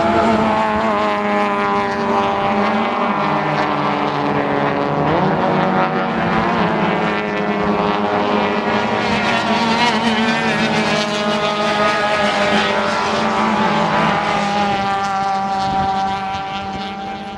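Engines of several 1.6-litre touring race cars running hard on a circuit, their pitch climbing and dropping as they accelerate and change gear. The sound fades out near the end.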